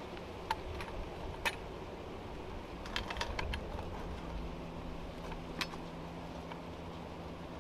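Sharp metal clinks and knocks of saddle-hunting climbing gear (platform, tether and harness hardware) as a climber works up a palm trunk. Single clinks come about half a second and a second and a half in, then a quick cluster of several around three seconds, then one more later. Under them runs a low steady rumble, joined about halfway by a steady hum.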